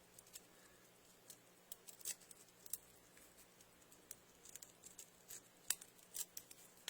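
Faint, irregular small metallic clicks from lockpick tools being worked in a lock.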